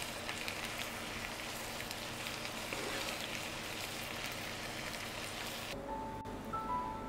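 Creamy sauce simmering in a frying pan, an even crackling sizzle. It cuts off suddenly near the end and soft music with held notes begins.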